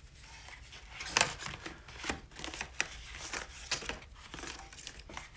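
Packaging and box contents being handled: irregular crinkling and rustling of paper and plastic with scattered light clicks and taps, the sharpest click about a second in.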